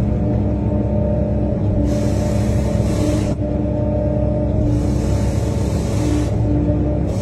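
Compact excavator's engine and hydraulics running steadily with a constant hum while its hydraulic flat sweeper brush works the wet road. A hiss comes twice, each lasting about a second and a half.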